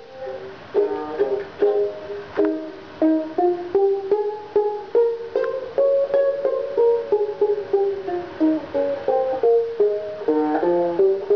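Homemade baritone resonator ukulele with a sheet-aluminium body and aluminium resonator cone, being fingerpicked in a steady run of single notes and chords, each plucked sharply and ringing briefly, with a banjo-like twang.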